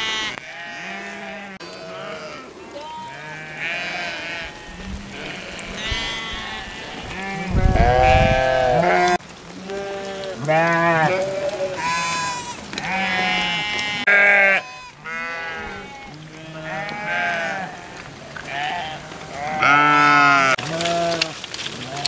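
A large flock of sheep bleating continually, many calls overlapping, some close and loud and others far off. A brief low rumble comes about eight seconds in.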